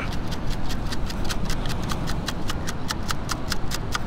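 A CKG beach sand scoop being shaken to sift sand out of its basket, with a quick rattle of clicks, about five or six a second. The dug target, a bottle cap, is among the sand.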